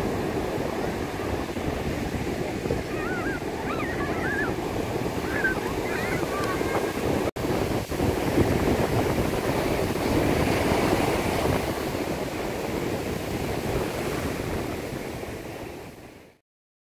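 North Sea surf breaking on a sandy beach, a steady wash of waves rolling in, with a few faint high calls a few seconds in. The sound breaks off for an instant near the middle, then fades out to silence just before the end.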